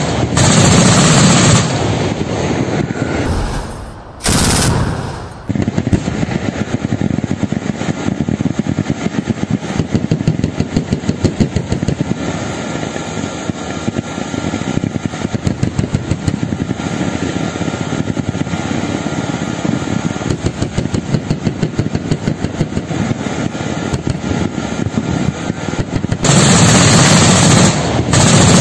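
Automatic weapons fire, rapid and almost continuous. The heaviest, loudest bursts come at the start and again near the end, with lighter rapid fire in between.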